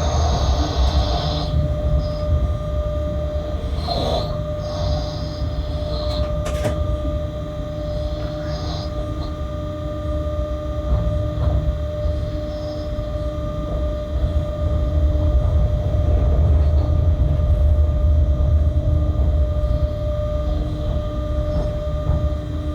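Freight locomotive running along the track, heard from inside the cab: a continuous low rumble of wheels on rail with a steady whine over it. There is a brief high squeal at the start, then a few short squeaks and a click, and the rumble grows louder in the second half.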